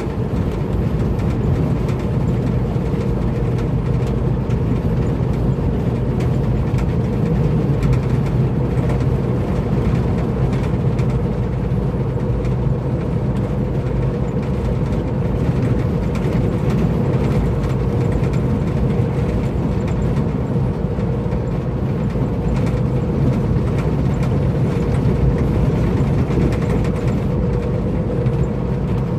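Heavy truck cab at highway cruising speed: a steady low engine drone mixed with tyre and road noise, unchanging throughout.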